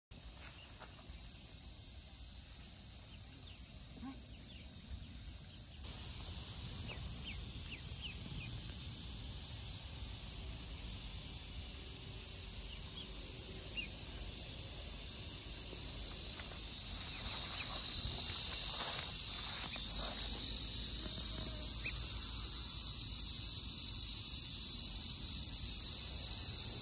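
Outdoor insect chorus: a steady high-pitched drone that grows louder about two-thirds of the way through, with a few faint short chirps.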